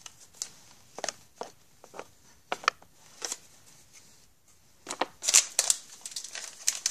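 Trading cards and a crinkly card-pack wrapper being handled on a tabletop: scattered light clicks and taps of the cards, then a cluster of crinkling about five seconds in.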